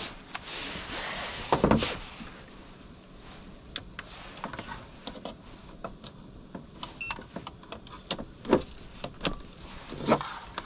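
Plastic clicks and knocks with a rustling cord as a Bosch power-tool battery charger is plugged in and a battery is set onto it. The loudest knock comes a little under two seconds in, followed by scattered sharp clicks.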